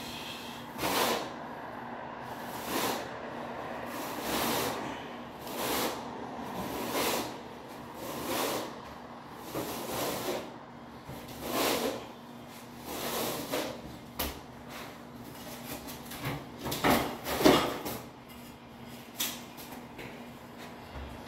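Notched steel trowel scraping thinset mortar across a concrete floor in repeated strokes, about one every one and a half seconds, with the loudest strokes near the end.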